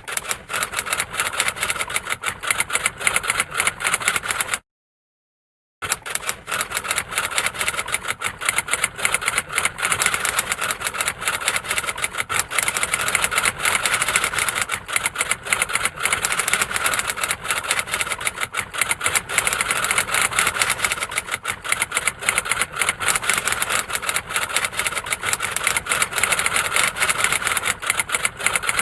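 Typewriter being typed on rapidly: a dense, fast stream of sharp key clicks, with a short break of about a second near the start.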